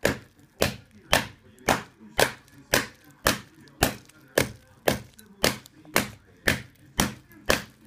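A hammer striking a circuit board in a plastic antistatic bag, fifteen evenly paced blows about two per second.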